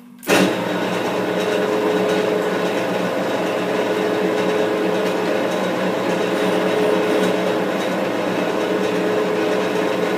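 Metal lathe switched on, coming up to speed with a sudden loud start about a third of a second in, then running steadily, its headstock gearing giving a whir with a steady whine through it.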